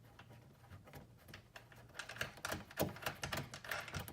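Light clicks and rattles of small metal hardware being handled, starting about halfway through: the new side mirror's mounting bolts being fitted by hand before they are tightened.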